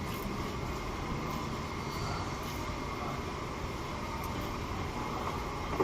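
Toyota Yaris engine running steadily at idle.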